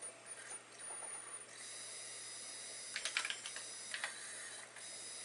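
A few keystrokes on a TRS-80 computer keyboard: a quick cluster of clicks about three seconds in and a single click about a second later. Under them runs a steady faint hiss with a thin high whine.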